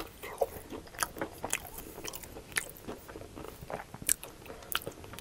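A crispy fried mashed-potato cake with a golden breaded crust being bitten into and chewed close to the microphone, with irregular sharp crunches of the crust and wet mouth clicks.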